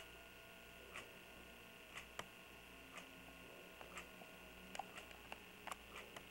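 Quiet ticking of a clock, one tick a second, with a few fainter irregular clicks between the ticks and a faint steady hum.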